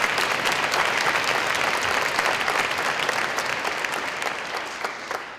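Audience of schoolchildren and adults clapping, a dense patter of many hands that tapers off near the end.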